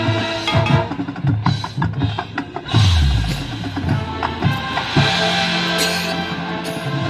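Marching band music in a percussion-heavy passage: quick drum and wood-block hits, a deep bass-drum boom about three seconds in, and held band chords.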